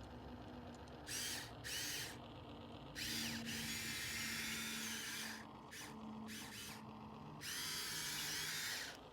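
Small electric motors of a remote-control toy excavator whining in repeated bursts as its arm moves, each burst starting and stopping abruptly with the pitch sliding up and down. A faint steady hum runs underneath.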